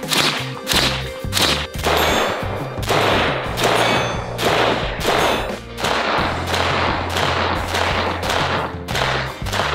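Strings of rapid gunfire from short-barrelled AR-15-style rifles, dense bursts of shots over background music with a steady beat.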